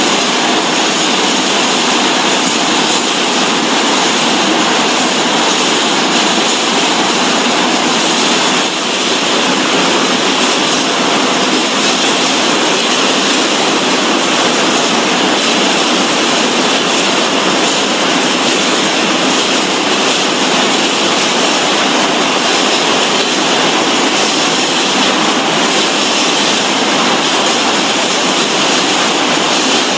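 Steady, loud factory machinery noise: an even hiss and rush with no beat, pitch or break.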